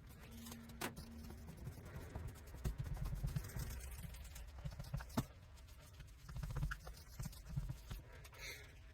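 Faint, irregular rubbing and scuffing with a few sharp clicks: a cloth or applicator pad working scratch-repair compound into a truck's painted body panel.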